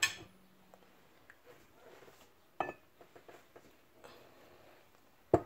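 Mostly quiet room with a few light knocks and clicks of dishes being handled on a counter: one about two and a half seconds in, a sharper one near the end, and small ticks between.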